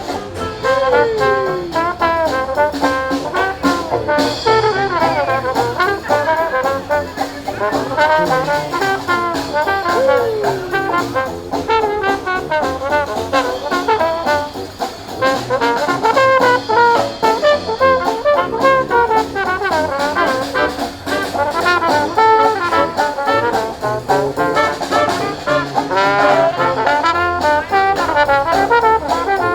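A live brass band playing, led by trombone and trumpet, with a trombone sliding down in pitch twice.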